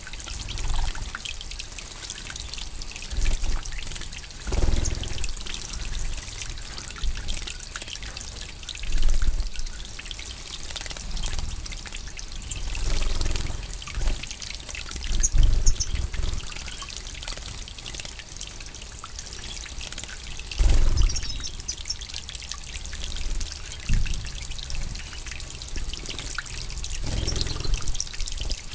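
Small birds bathing in a shallow pool, European goldfinches in moult: irregular bouts of splashing and fluttering in the water, coming every few seconds.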